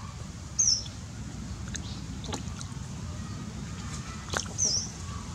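Two short, high bird chirps, one about half a second in and another about four seconds later, over a steady low rumble.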